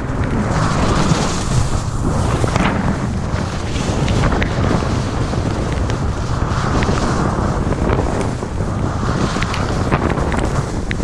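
Loud wind noise buffeting the microphone of a skier moving down a piste. Under it, ski edges scrape on the snow in swells every couple of seconds.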